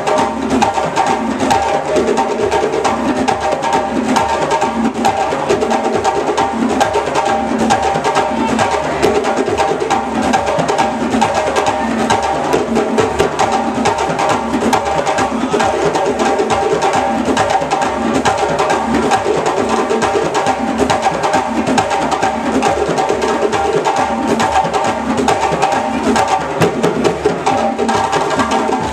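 An ensemble of djembe hand drums played live, with larger drums behind them, keeping up a fast, steady rhythm without a break.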